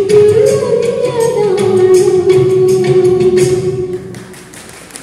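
Malayalam film song with a singer holding a long, slowly falling note over sharp percussion strikes; the music stops about four seconds in, leaving a much quieter room.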